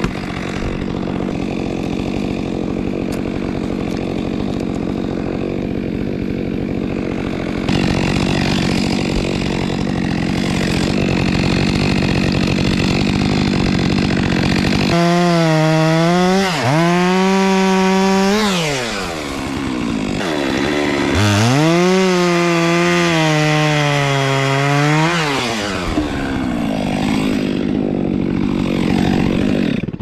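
Gas chainsaw running at high revs while cutting into an oak trunk. Its engine pitch drops and picks back up a couple of times as the chain bites into the wood.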